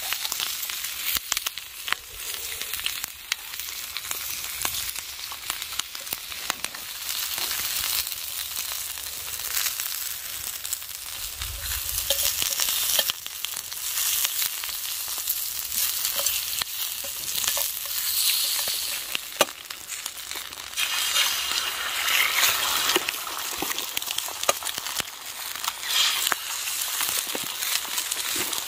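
Thick bacon and vegetables frying in a campfire frying pan: a steady sizzle with many small pops, somewhat louder in the last third, with two eggs frying in the pan by the end.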